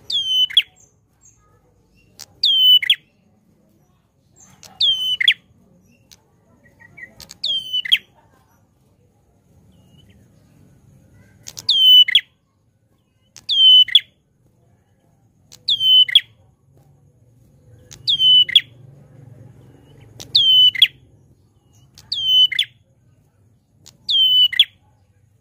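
Caged prenjak klawu calling loudly and repeatedly: eleven short, sharply falling chirps, about one every two seconds, with a pause of a few seconds near the middle.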